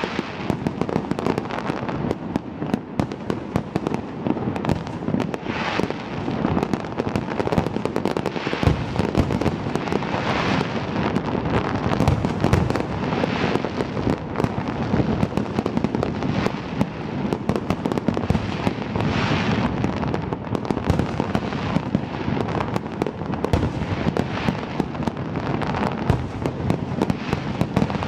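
Fireworks display: a dense, unbroken barrage of shell bursts, with swells of crackling every few seconds.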